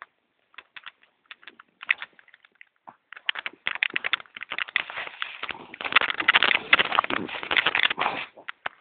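French bulldog crunching a hard biscuit: scattered crisp crunches at first, becoming a fast, dense run of loud chewing about three seconds in, then stopping near the end.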